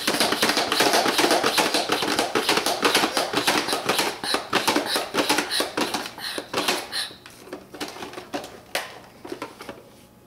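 The Big Blast dart blaster being pumped up to pressure: a fast run of pump strokes with air rushing, thinning out after about six seconds and stopping near the end.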